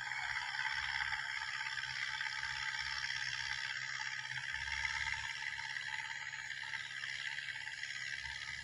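Farm tractor running steadily as it pulls a disc harrow through a ploughed field, heard from a distance as an even engine sound with a constant rattle.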